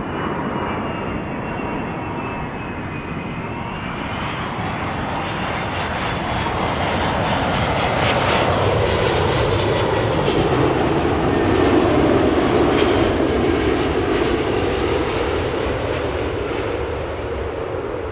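Qatar Airways Airbus A380 arriving, its four Engine Alliance GP7200 turbofans passing by. The jet noise builds to a peak about twelve seconds in and then fades, with a high whine sliding down in pitch over the first four seconds.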